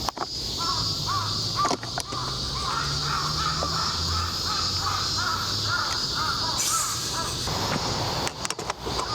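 A crow cawing in a quick series of short calls that stops about six seconds in, over a steady high hiss and a low hum.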